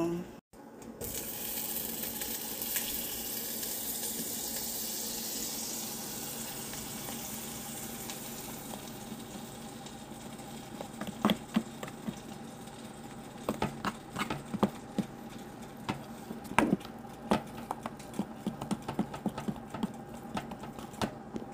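Tap water running steadily for several seconds and then tailing off. After that, a utensil clicks and knocks irregularly against a plastic bowl as pancake batter is stirred.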